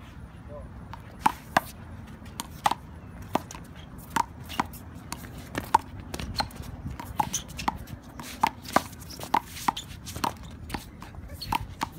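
One-wall handball rally: a small rubber handball is slapped by gloved hands and bounces off the concrete wall and court. It makes a string of sharp smacks, about one to two a second, starting about a second in.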